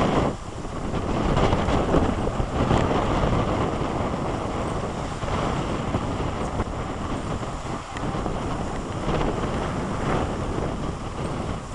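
Strong typhoon wind buffeting the microphone, a rough rumbling noise that rises and falls in gusts, with two brief lulls.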